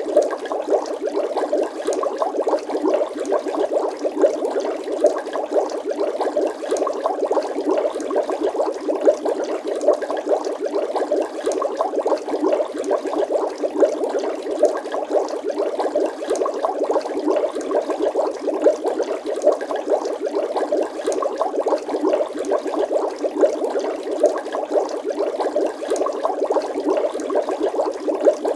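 Water bubbling continuously: a dense stream of small bubbles popping rapidly and steadily.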